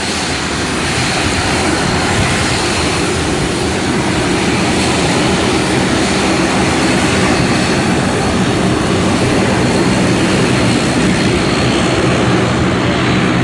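AirAsia jet airliner's engines running on the runway: a steady jet noise with a faint high whine.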